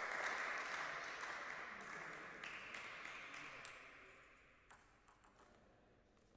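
Applause that fades away over about four seconds after a point, then a few light ticks of a table tennis ball being bounced before a serve.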